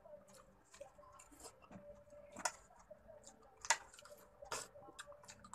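Wet mouth sounds of eating saucy butter garlic seafood by hand: lip smacks, sucking of sauce from fingers and shells, and chewing, with three sharper smacks in the middle and later part.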